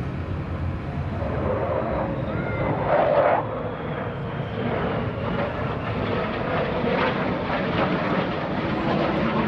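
F-35C Lightning II jet, its single Pratt & Whitney F135 afterburning turbofan heard as a steady, broad jet rumble, with a brief louder surge about three seconds in.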